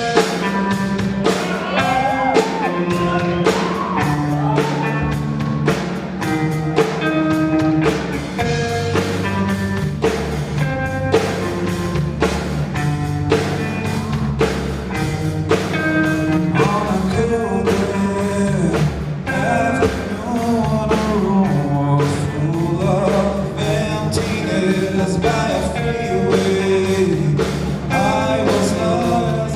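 Live rock band playing a song with a lead singer: drum kit and guitar under the vocal, with drum hits keeping a steady beat. The band kicks in sharply right at the start.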